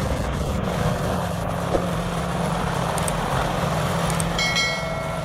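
Vermeer HG6800TX horizontal grinder running: a steady, heavy machine drone with a constant low hum and grinding noise, with a brief high whine near the end.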